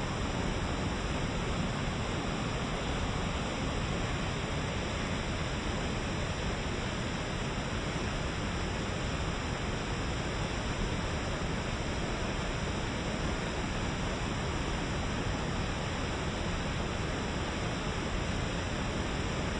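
A rain-swollen river rushing over a rocky cascade, a steady, unbroken noise of white water mixed with heavy rain falling.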